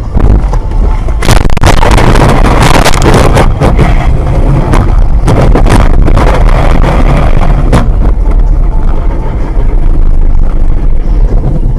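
Loud, distorted vehicle noise: a heavy low rumble with a surge of rushing noise from about a second in, and several sharp knocks scattered through it.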